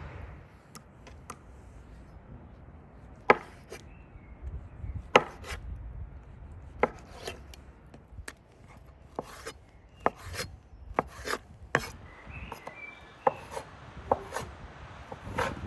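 Kitchen knife cutting raw lamb testicles on a wooden cutting board: separate sharp knocks as the blade meets the board, unevenly spaced about one or two a second, with faint ones at first and louder ones from about three seconds in.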